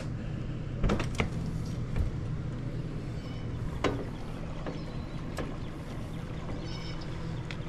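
Camper door latch clicking and the door opening, with another pair of clicks about a second in and a few lighter clicks later, over a steady low hum.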